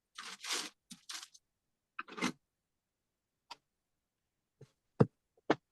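Cardstock pieces being handled on a work surface: a few short rustles and slides of card in the first couple of seconds, then several sharp taps, the last two the loudest.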